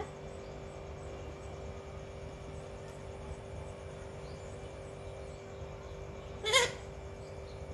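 A rose-ringed parakeet gives one brief, loud squawk about six and a half seconds in, over a steady low hum.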